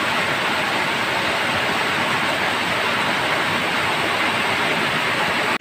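Heavy rain falling steadily, a loud, even hiss with no breaks.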